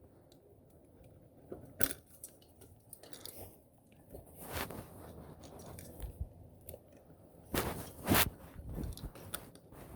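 Small clicks, ticks and scraping of a fuse being worked out of a motorcycle fuse box by hand, with a few sharp ticks and louder scrapes near the end.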